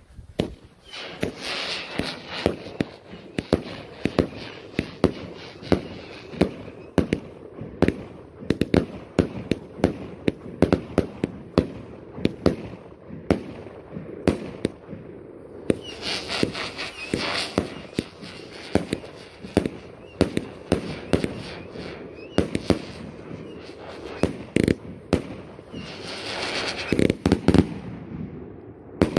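A 100-shot consumer fireworks cake firing: dozens of shots in quick, uneven succession, each a sharp launch report or burst, with several stretches of denser hiss and crackle as the effects break.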